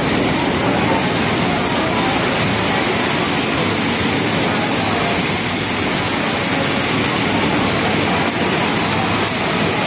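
Industrial sewing machines running steadily, a dense even whir, with a Pegasus WT600 flatlock machine stitching a knit sleeve hem.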